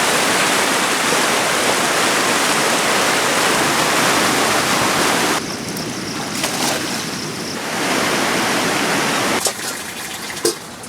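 Mountain river water rushing, an even hiss that drops abruptly about halfway through, comes back, and drops again near the end, with a few sharp clicks.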